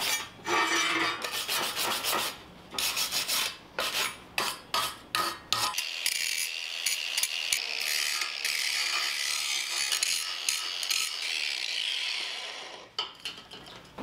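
A hand wire brush scrubbed over fresh MIG welds on steel in short, irregular strokes, then an angle grinder grinding down a weld on a steel leg, a steady grinding from about six seconds in that stops about a second before the end. This is the clean-up of the welds after welding.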